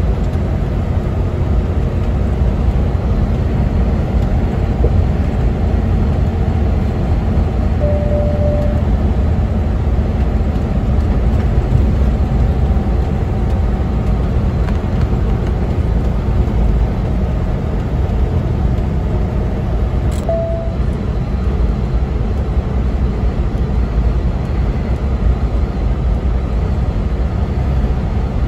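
Semi truck's diesel engine droning steadily in the cab with tyre and road noise, the truck held back in low gear on its engine brake down a steep grade rather than on its service brakes. Two short beeps, about a third and about two thirds of the way through.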